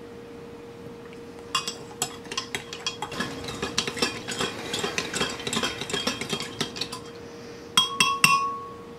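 Metal teaspoon stirring coffee in a ceramic mug: rapid clinking against the sides for about five seconds, then three sharp taps on the rim that leave a ringing tone.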